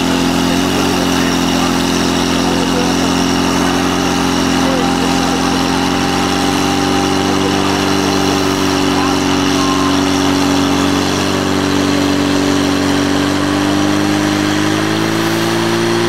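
Portable fire pump engine running steadily at high revs while pumping water through the suction and delivery hoses. Its pitch steps up a little about a second in and rises again near the end.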